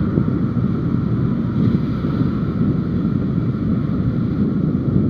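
Wind rushing over the action camera's microphone, mixed with the steady drone of a motorcycle riding at speed.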